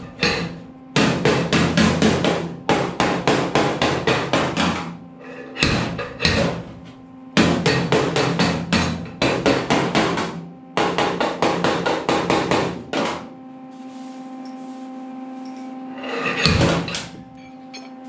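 Body hammer tapping rapidly on the sheet-steel cab panel of a 1952 Ford truck, in several runs of quick metallic blows about five or six a second, as a creased dent is worked out with a homemade dent puller. A steady low hum runs underneath.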